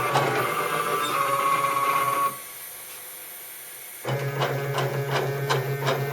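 Stepper motors of a CNC hot-wire foam cutter running, stopping about two seconds in, then starting again about two seconds later with a regular ticking. The short stop is the machine pausing between cuts while the wire moves into position.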